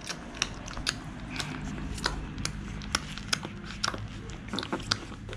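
Newborn Doberman puppies suckling at their mother's teats: a string of irregular soft clicks and smacks, several a second.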